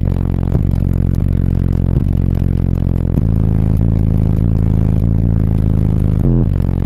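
CT Sounds Exo 15-inch car subwoofers playing heavy bass at extreme volume, heard inside the car's cabin, with deep bass notes shifting pitch every second or so. The bass pressure is strong enough to crack the windshield.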